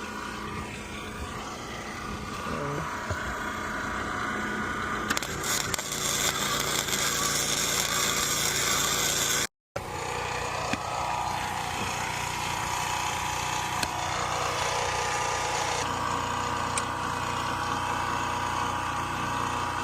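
A small engine running steadily, joined for about four seconds near the middle by louder hissing noise from a tool at work.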